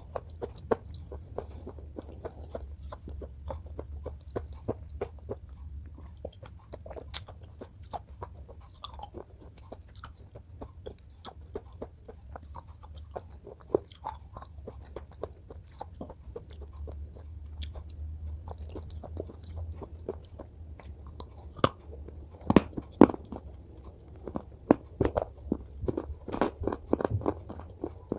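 Close-miked chewing and crunching: a string of short, sharp crunches and mouth clicks that grow louder and more frequent in the last several seconds, over a low steady hum.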